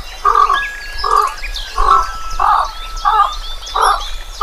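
An animal giving short calls over and over in an even rhythm, about one and a half a second, with birds chirping and whistling higher above them.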